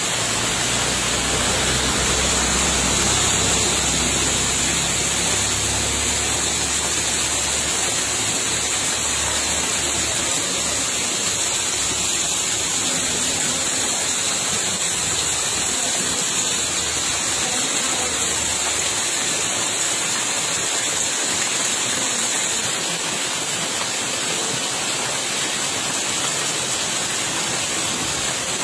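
Steady rushing of water from flowing floodwater in heavy rain, an even hiss with no breaks. A low rumble under it dies away about twenty seconds in.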